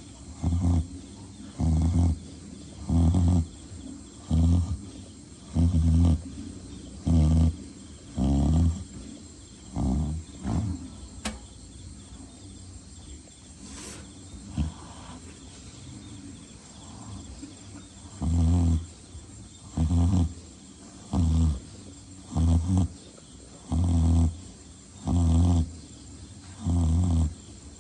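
Pig snoring: a low snore about every second and a half, with a pause of several seconds in the middle before the snoring picks up again at the same pace.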